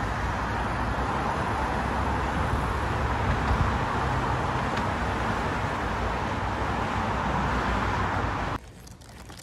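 Steady traffic noise from cars on a city road, an even rush of tyre and engine sound that cuts off abruptly near the end.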